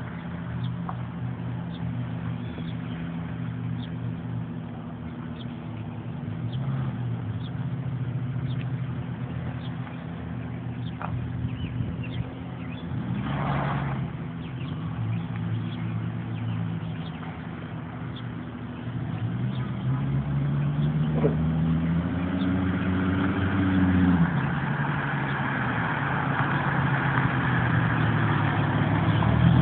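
1998 Ford Mustang's 3.8-litre V6 with a glass-pack exhaust and a bolt-on turbo whistler, idling, then revved once: the pitch climbs over a few seconds and drops back, and a hiss builds with the rev and carries on to the end.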